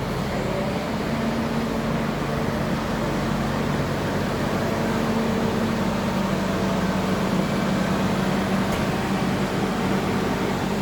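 Steady running noise of a farm vehicle heard from inside its cab: an even rushing hum with a low engine drone underneath.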